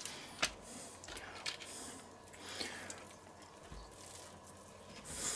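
Faint handling sounds of raw bacon being peeled from a plastic tray and pressed around a stuffed pork roll: soft squishes and rustles, with a sharp click about half a second in and a brief rustle near the end.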